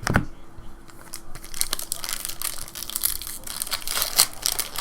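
Trading card pack wrapper crinkling and tearing as it is opened, with cards handled, in a run of crackling rustles that thickens in the second half. A faint steady hum lies underneath.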